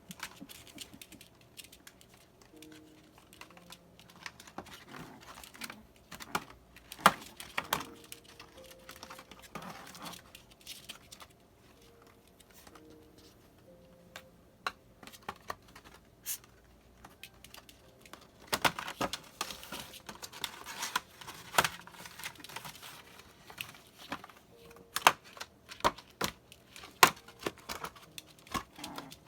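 A small pet playing with a small cardboard box: irregular scratches, taps and crinkles of cardboard, coming in clusters with a quieter stretch in the middle.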